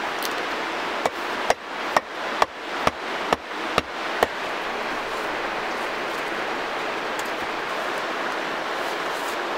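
An axe hammering a sharpened wooden stake into the ground beside a log: eight sharp wooden knocks about two a second, stopping a little past the middle. A steady rushing noise runs underneath.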